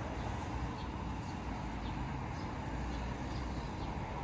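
Steady low rumble of street traffic, with faint short high chirps now and then.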